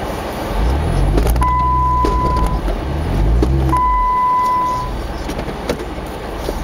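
Jeep Wrangler JK Unlimited engine, heard from inside the cab, revving up twice and easing off as the Jeep pushes through snow. Two steady high beeps, each about a second long, sound over the engine.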